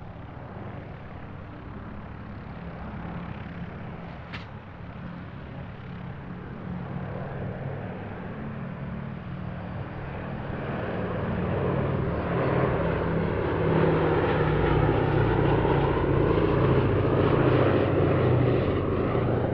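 Boeing B-17G Flying Fortress's four radial piston engines droning through a low pass, growing steadily louder through the second half and peaking near the end. A single sharp click comes about four seconds in.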